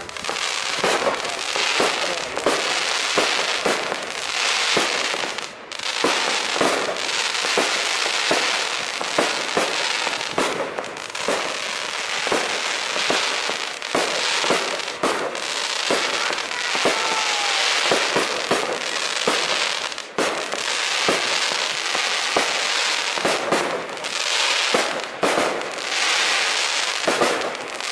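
Fireworks display: aerial shells and crackling stars going off in rapid succession, many sharp bangs over a continuous crackle.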